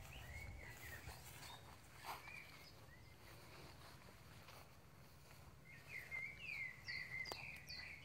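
Wild songbirds calling in the woods: a few short whistled notes in the first seconds, then a quick run of higher chirping notes near the end.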